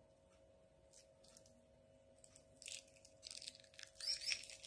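Pomelo membrane and pith being pulled off a segment by hand: faint, soft tearing and crackling in short scattered bursts, thickest near the end, over a faint steady hum.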